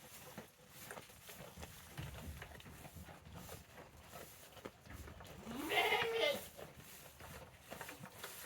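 A goat bleats once, about six seconds in, a rising call lasting under a second, over faint scattered knocks and rustling.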